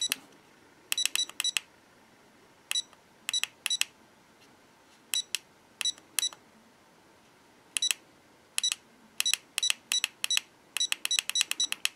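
Short high-pitched electronic beeps from a Furious True-D V3 diversity receiver, one for each press of its buttons as the channels are stepped through. They come singly and in small groups, with a faster run of presses near the end.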